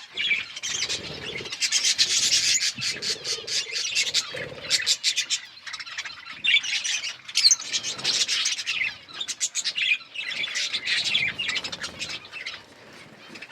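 Budgies chirping and chattering continuously, several birds at once, with stretches of rapid clicking mixed in.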